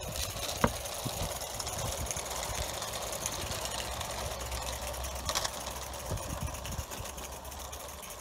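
Bassett-Lowke Enterprise 4-4-0 live steam model locomotive running under load with four coaches: a steady, rapid mechanical clatter of its exhaust and wheels on the rails. One sharp click stands out just under a second in.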